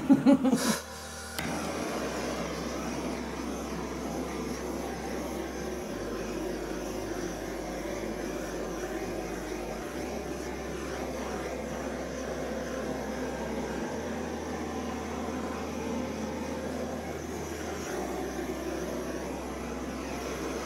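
Hair dryer blowing steadily, switched on about a second and a half in.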